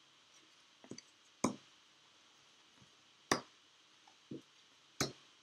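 Small cards being dealt from a deck and laid down on a table: about five short, sharp taps and clicks, a second or so apart.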